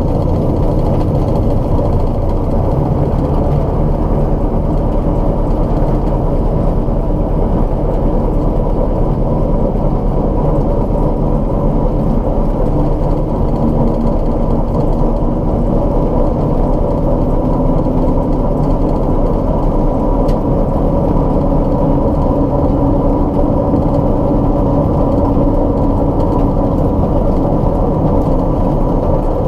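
Light aircraft's piston engine running steadily at taxi power, heard from inside the cabin, with the metal grinding and vibration that the owner suspects comes from low main landing-gear oleo strut pressure.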